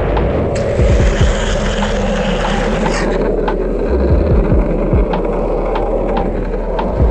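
Wind rushing over a helmet-mounted GoPro and a downhill skateboard's urethane wheels running on asphalt at speed, a steady loud rush with scattered small knocks from the road. It turns brighter and hissier for about two seconds, from a second in.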